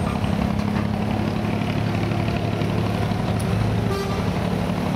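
Diesel engine of an abra, a wooden water taxi, idling steadily with a low hum.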